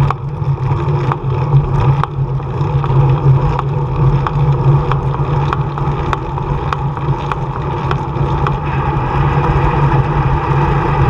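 Motobecane Cafe bicycle being ridden, with wind on the microphone and a steady road hum, and a sharp knock repeating about every half-second to two-thirds of a second. It is the loud knocking clunk that the rider suspects comes from a loose or worn bottom bracket.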